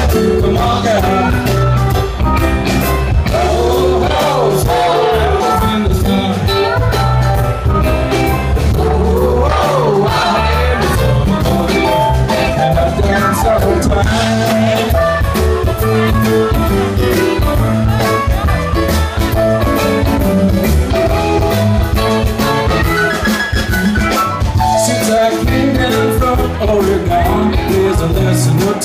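Live rock band playing loudly, with electric guitar, keyboards and drum kit, and a voice singing over the band.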